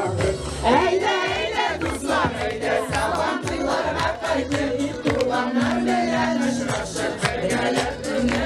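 A group of women singing a Tatar song together, with one note held for about a second around the middle.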